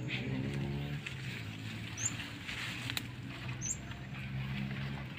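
Leaves and brush rustling as a man pushes through a thicket with a bamboo pole, over a steady low motor hum. A few short high chirps come about every two seconds.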